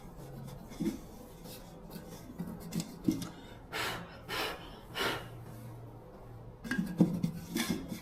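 Hand work on small parts: a few light knocks and clicks, three short scraping or rasping strokes about midway, and a burst of small clattering near the end.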